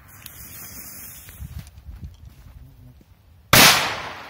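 A Korsar-3 firecracker's lit fuse hisses for about a second and a half. About three and a half seconds in comes a single loud bang, fading over about half a second.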